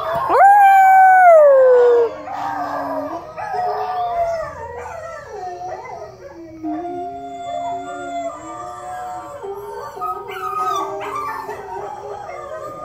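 Dogs howling: a loud howl about half a second in that rises sharply and then slides down in pitch, followed by quieter wavering howls that sometimes overlap.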